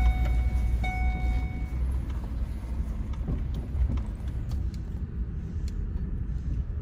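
Steady low engine and road rumble heard inside a moving vehicle's cabin, with two electronic chime tones about a second apart near the start.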